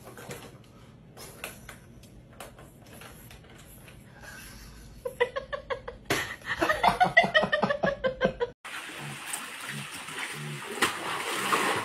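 Plastic ball-track cat toy clicking and rattling as cats bat at it, then a louder run of rapid, pitched stuttering sounds as the toy is knocked over. About two and a half seconds before the end it cuts to a small waterfall splashing into a pool.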